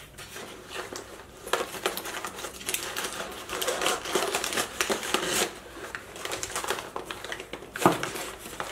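Crumpled brown kraft packing paper rustling and crinkling in irregular bursts as hands dig through it inside a cardboard box. Near the end there is a single sharp knock, the loudest sound.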